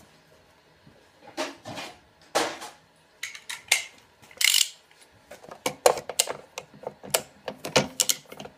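Metal hand tools clinking and clattering as a spark plug wrench is picked up and handled, in irregular sharp clicks that come thicker in the second half.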